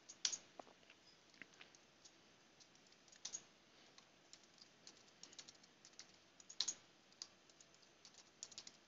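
Faint keystrokes on a computer keyboard in short, scattered bursts with pauses between them, as a password is typed at a terminal prompt and then typed again.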